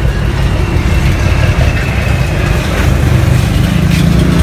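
A motor vehicle engine idling, a low steady rumble.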